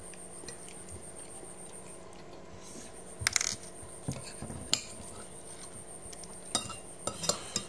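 Metal spoons clinking and scraping against plates and bowls during a meal: a handful of separate sharp clinks, the first about three seconds in and the rest spread toward the end.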